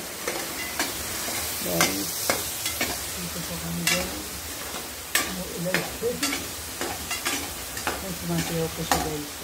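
Food sizzling in a frying pan while a metal utensil stirs and scrapes it, with sharp clinks against the pan every second or so.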